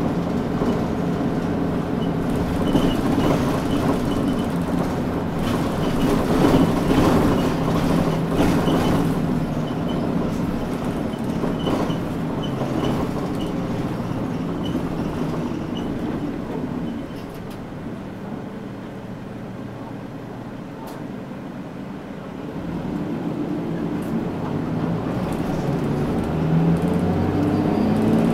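Mitsubishi Fuso Aero Midi KK-MK27HM medium-size bus heard from inside while driving: steady diesel engine and road noise. The sound eases off for a few seconds past the middle, then builds again as the engine pulls near the end.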